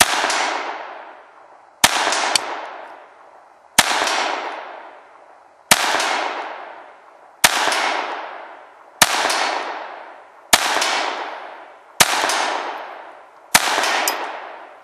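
Nine shots from a Ruger 22/45 Mark III .22 LR semi-automatic pistol with a 4-inch barrel, fired at a steady pace of about one every one and a half to two seconds. Each sharp crack trails off over about a second.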